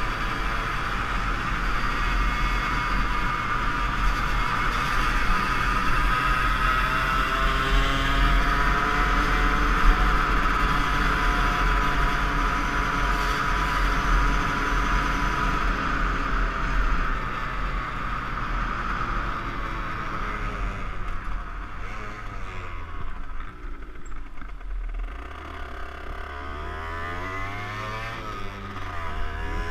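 A 50 cc two-stroke motorbike engine held at high revs, with wind rumbling on the helmet-mounted camera. Past the middle the engine note drops and gets quieter, then rises and falls several times as the throttle is eased on and off.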